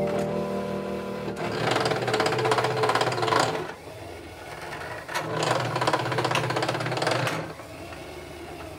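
Small motorised machine running in two buzzing bursts of about two seconds each, with a quieter pause between them.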